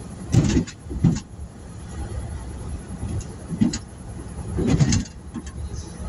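A vehicle engine idling with a low steady rumble, heard from inside a cab. Several short muffled sounds break in over it, the loudest just after the start and again about five seconds in.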